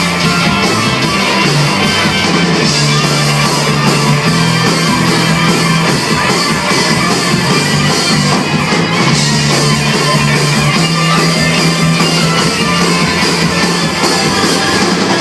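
Live rock band playing an instrumental stretch, loud and steady, with guitars and a driving bass line.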